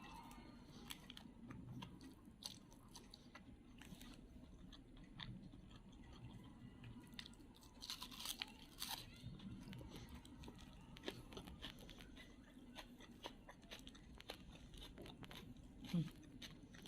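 A person chewing and biting food, with faint crunches and small wet mouth clicks, a little louder about halfway through.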